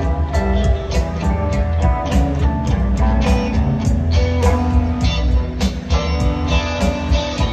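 Live rock band playing an instrumental passage: electric guitar and keyboards over bass and a steady drum beat, heard from the audience.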